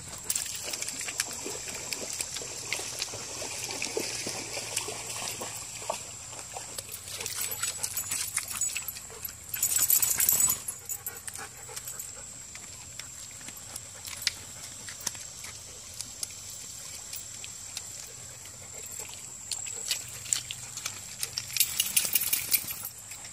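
A goldendoodle moving about on creek-bank stones: scattered clicks and scrapes, with two louder rushes of noise, about ten seconds in and again near the end, over a thin steady high-pitched whine.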